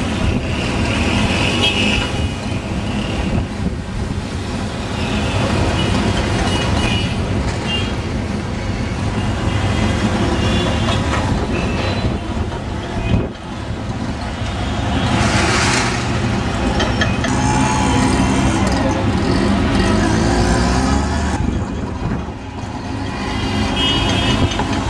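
Busy street traffic on a wet road heard from above: a steady wash of engines and tyres, with a few short horn toots and a sharp hiss about fifteen seconds in.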